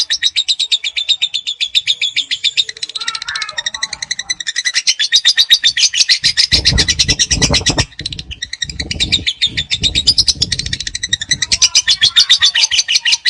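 Lovebird doing its 'ngekek': a long, rapid chattering trill of sharp notes that runs almost without a break. A low rumble sits underneath for a few seconds in the middle.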